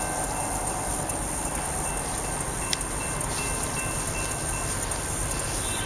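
Steady low rumble of an unseen, distant Norfolk Southern diesel freight train, under a constant high hiss.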